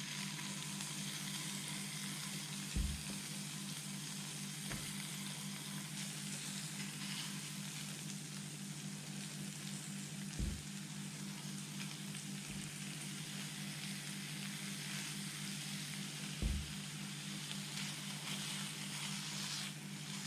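Thin strips of dove and francolin breast frying in a very hot pan: a steady sizzle. A steady low hum lies underneath, and there are a few short low thumps, the loudest about 3 and 16 seconds in.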